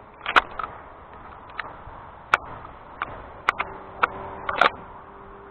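An irregular series of about ten sharp clicks and taps, handling noise from a shotgun being held and moved, over a faint steady hum.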